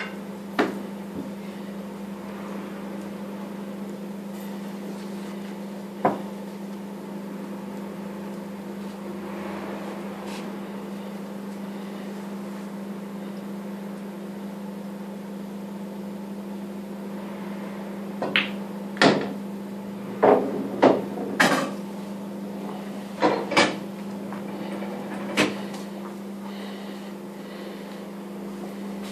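Pool balls clacking during play, heard as sharp knocks. There is a single knock near the start and another about six seconds in, then a quick run of several knocks about two-thirds of the way through. A steady low hum runs underneath.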